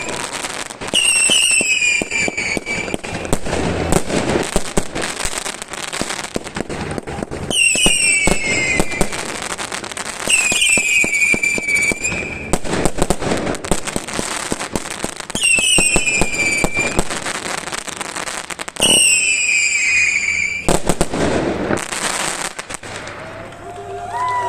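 Fireworks and firecrackers going off in a dense run of rapid crackles and pops, with short, high, whistling shrieks that fall slightly in pitch every few seconds.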